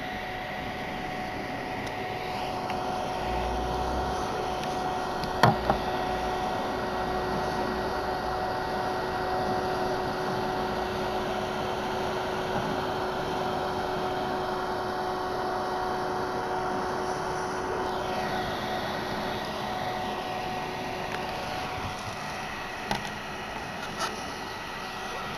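Small thermoelectric mini fridge running, its cooling fan giving a steady hum with a few constant tones. A single sharp knock about five seconds in and a few light ticks near the end.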